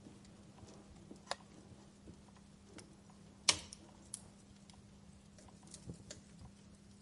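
Wood fire crackling: scattered sharp pops and snaps at irregular intervals, the loudest about halfway through, over a faint steady low hum.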